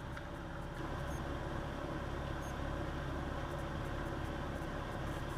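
Steady low hum with a faint hiss: background room tone with no distinct event.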